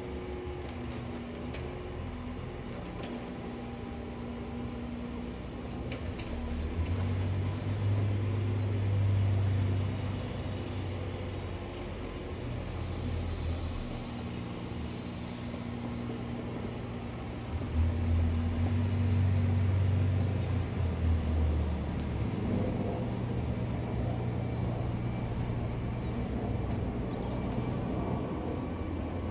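Airbus A380 four-engine jet airliner flying overhead, a continuous low rumble with steady low tones. Two louder low swells come through, one about seven seconds in and another starting sharply at about eighteen seconds.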